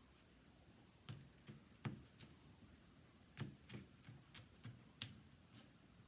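Faint, irregular clicks and taps of a spoon against a mixing bowl and a small foil tin as a sticky birdseed mixture is scooped and pressed down, starting about a second in.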